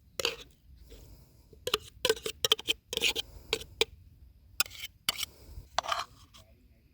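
Crunchy corn crisps being bitten and chewed, a quick run of short, sharp crunches.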